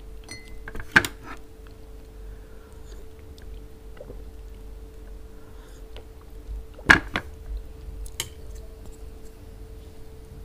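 A glass mug clinks sharply against the table about a second in, then is drunk from quietly. It knocks back down onto the table with two or three more clinks around seven to eight seconds in. A faint steady hum runs underneath.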